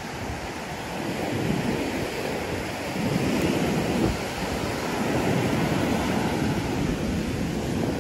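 Ocean surf breaking and washing up on a sandy beach, a steady rushing noise that swells a little louder about three seconds in, with wind on the microphone.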